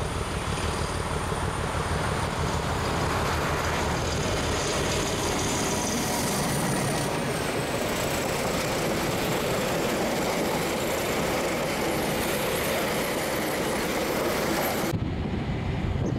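English Electric DG-class diesel-electric locomotive running past, then its passenger carriages rolling by with steady wheel-on-rail noise and a thin high squeal. About a second before the end the sound cuts suddenly to a duller, lower rumble.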